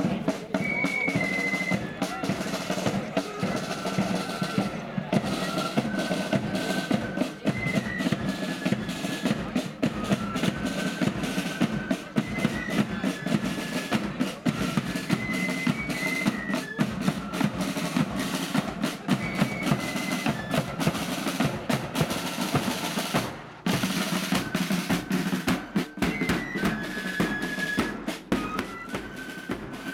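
Marching flute band playing a march: a flute melody over rolling snare drums and a bass drum beat, with a brief gap about two-thirds of the way through.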